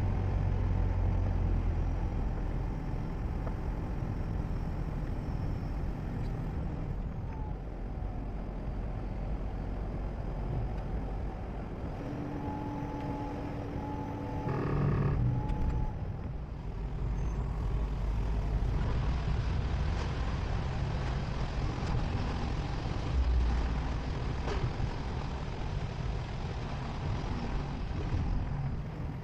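Car driving along a rainy road: steady low engine and tyre noise, with a brief tone about halfway through.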